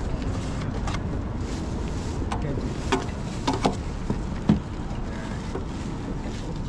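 Steady low outdoor rumble with a few short knocks and clicks scattered through it, the sharpest about four and a half seconds in.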